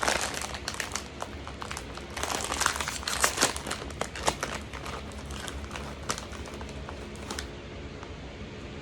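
Crinkly snack bag of Wise Loose Screws being handled, with a run of sharp crackles and rustles that stops about seven and a half seconds in.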